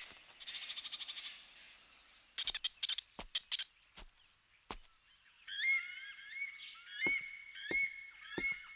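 Animated wildlife ambience. It opens with a brief pulsed, frog-like trill, then a cluster of sharp clicks or taps. From just past halfway, a string of short chirping calls repeats about twice a second, each rising at the end.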